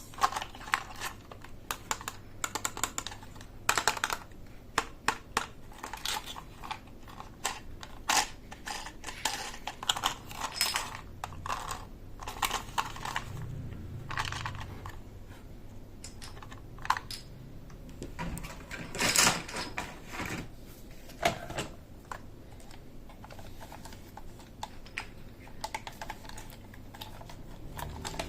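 Hands unboxing and handling a plastic toy set: irregular light clicks and taps of plastic pieces and packaging, a few louder knocks among them.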